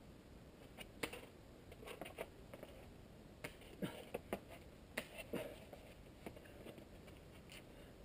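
Faint, scattered taps and scuffs of a boulderer's hands and climbing shoes on the rock, with a small cluster of sharper knocks in the middle.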